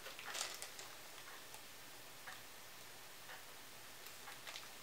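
Faint, irregular small clicks as a metal lapel pin is taken out of its packaging and handled.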